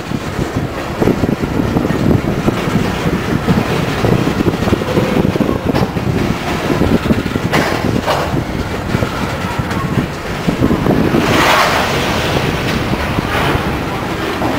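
Loaded-train string of coal gondola cars rolling past close by: a steady, loud rumble of steel wheels on rail with scattered clacks, and wind on the microphone.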